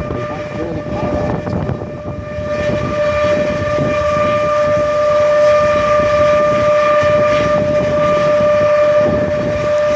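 C-5 Galaxy's turbofan engines running while the aircraft taxis: a steady high whine over a dense rumble, growing louder about two and a half seconds in.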